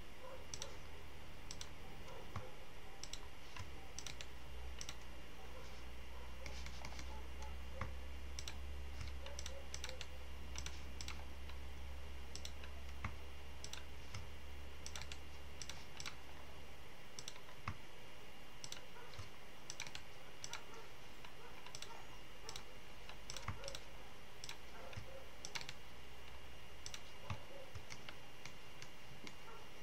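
Scattered, irregular clicks of a computer mouse and keyboard, over a steady low hum that fades about halfway through.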